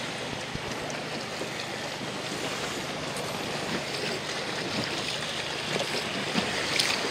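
Steady wind and choppy seawater splashing around a small boat.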